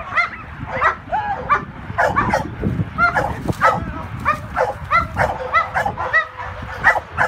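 A dog barking excitedly and without a break, about two to three short barks a second.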